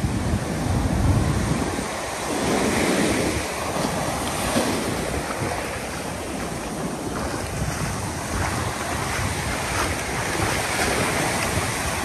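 Ocean surf breaking and washing up the beach, one wave swelling a couple of seconds in, with wind gusting against the microphone.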